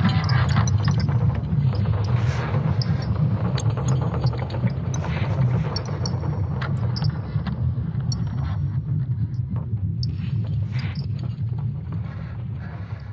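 Low vehicle rumble fading slowly away, with faint high ticks over it.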